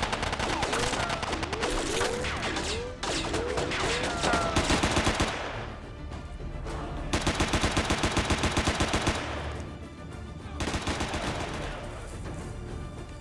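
Automatic rifle fire in three bursts: a long, dense stretch of overlapping shots, a gap, then a steady burst of about seven shots a second, and a shorter burst near the end.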